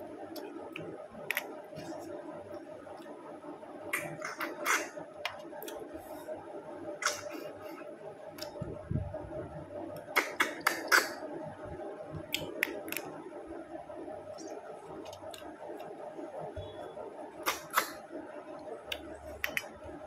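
Close-up eating sounds of a person eating snail curry by hand: short sharp smacks and sucking clicks in small clusters every few seconds, as snails are sucked out of their shells. A steady low hum runs underneath.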